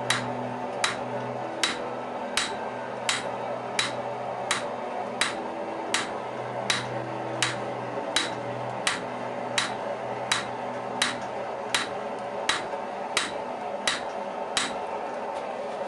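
Rounding hammer striking hot steel on an anvil while forging the bevels of a sword blade: a steady rhythm of sharp blows, about three every two seconds, that stops shortly before the end, over a steady low rushing noise.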